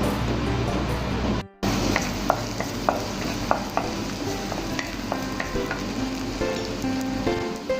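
Food frying in a pan with a steady sizzle, stirred with a utensil that clicks against the pan now and then. Background music plays throughout, and the sound cuts out briefly about a second and a half in.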